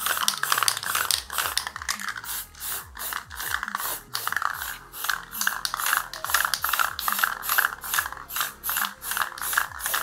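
Aerosol spray paint can being shaken, its mixing ball rattling in a fast even rhythm of about three or four clacks a second.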